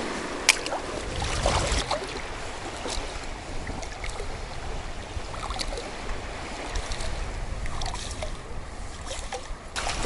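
Shallow seawater sloshing and lapping around a wading person and a shovel probing the seabed, with low wind rumble on the microphone. One sharp click about half a second in.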